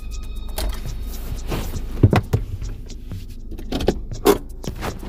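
Handling noise from a phone being moved about inside a car: irregular knocks and clunks, the loudest about two seconds in and again near the end. Background music stops within the first half second.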